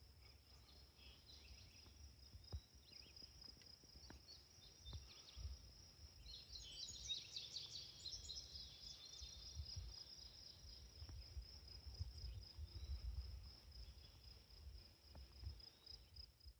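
Faint outdoor field ambience: an insect trilling steadily at a high pitch, with birds chirping, busiest about seven to ten seconds in, over a low uneven rumble.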